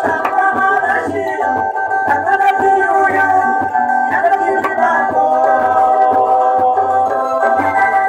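A live band playing amplified music, heard from among the crowd. Held keyboard-like chords sit over a stepping bass line, with steady percussion throughout.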